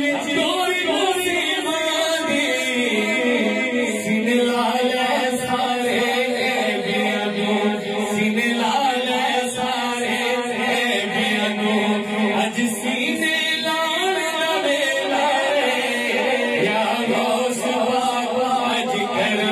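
A man singing a Punjabi manqabat in praise of Ghaus-e-Azam through a microphone, in long held, ornamented melodic lines with no pauses.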